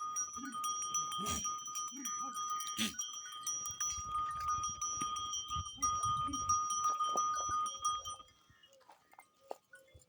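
Goats bleating repeatedly, over a steady high-pitched tone that cuts off about eight seconds in.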